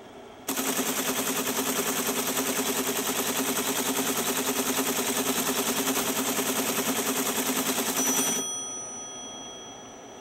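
Teletype Model 33 ASR running a punched paper tape through its reader: a loud, rapid, evenly paced mechanical clatter that starts about half a second in and stops abruptly after about eight seconds.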